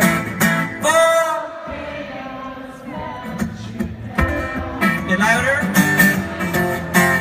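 Acoustic guitar strummed live over the PA with a male voice singing a bending melody between strums.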